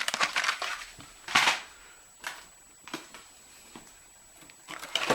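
Small die-cast toy cars being handled: scattered clicks and light knocks with short rustles, the loudest a rustle about a second and a half in.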